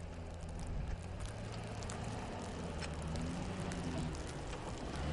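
Snowplow pickup truck's engine running steadily at low revs as it drives through deep snow, with a scattered crackle of snow being pushed and crunched by the plow blade and tyres.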